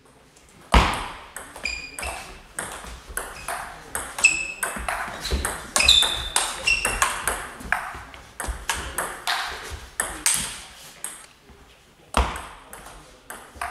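Table tennis rally: the plastic ball clicking off bats and table in quick, irregular succession, about two or three hits a second, each with a short ringing ping. The hits echo in a large hall.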